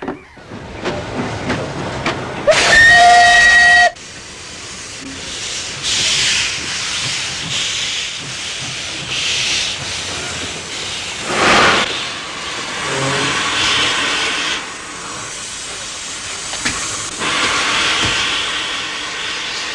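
Steam locomotive whistle sounding one loud blast of about a second and a half, a few seconds in, then cutting off sharply. After it the locomotive's steam hisses on, swelling and fading in surges.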